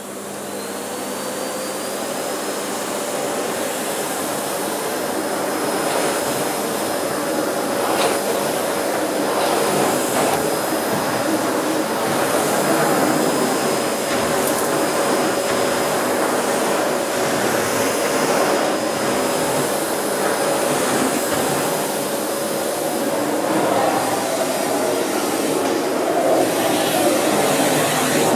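Electrolux Bolido bagged cylinder vacuum cleaner motor spinning up on its soft start, the whine rising over the first few seconds, then running steadily as its floor head is pushed over carpet.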